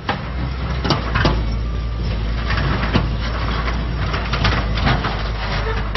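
Street noise on an old archival film soundtrack: a steady low rumble, like distant traffic, with scattered clicks and knocks.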